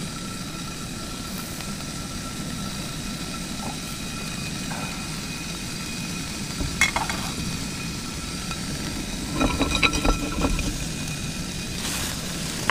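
Sausages sizzling in a frying pan over a running portable cookstove burner, with a steady low burner noise. A clink about seven seconds in and a short run of knocks and scrapes around ten seconds as the pan is shaken.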